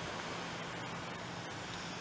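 Business jet's engines at a distance during its takeoff roll: a steady rushing roar with a faint low hum under it.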